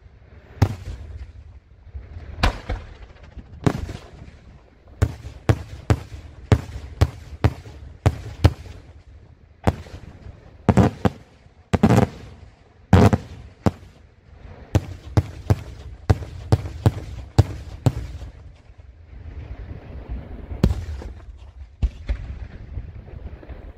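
Daytime aerial fireworks: a long, irregular series of sharp bangs from shells bursting overhead, some in quick succession. The heaviest reports come about eleven, twelve and thirteen seconds in.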